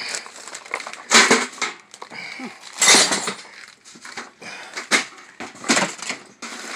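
Junk being rummaged through and handled in boxes: rustling and clattering, with four louder, short crashes spaced a second or two apart.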